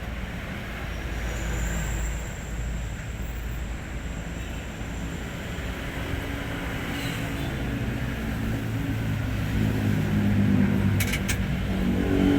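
Hino 500 truck's diesel engine running steadily, its note growing stronger and louder over the last few seconds. A couple of sharp clicks come about eleven seconds in.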